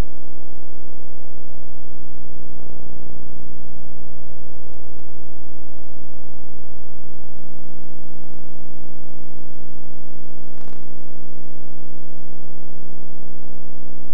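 Loud, unchanging hum with many steady overtones and no game sound under it. A faint short click comes about ten and a half seconds in.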